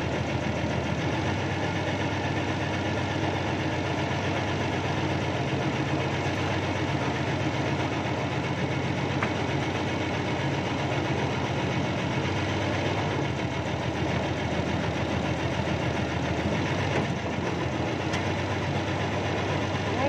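Backhoe's diesel engine running steadily, heard from inside the operator's cab.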